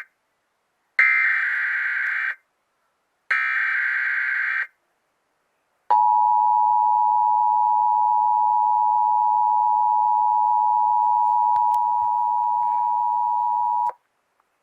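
Emergency Alert System signal for a Required Monthly Test. Two identical screechy digital SAME header bursts, each about a second and a half long, are followed about 6 seconds in by the steady two-tone EAS attention signal, which holds for about eight seconds and cuts off abruptly.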